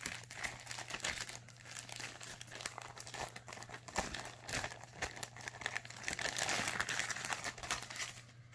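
Thin clear plastic sleeve crinkling irregularly as it is handled and a paper card is slid out of it.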